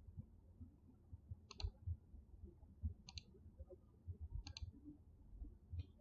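Computer mouse clicking: four short clicks, some doubled, about a second and a half apart, over a faint low rumble.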